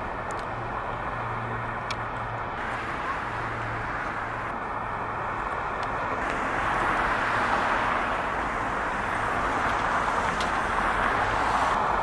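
Steady rush of passing road traffic, swelling louder in the second half.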